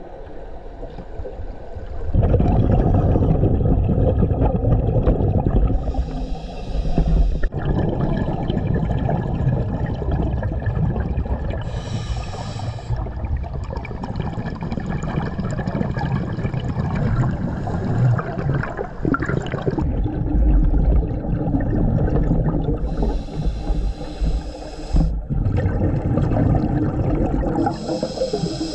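Underwater sound of scuba diving: a steady low gurgling rumble of water against the camera, broken by a few rushing bursts of a diver's exhaled bubbles from the regulator.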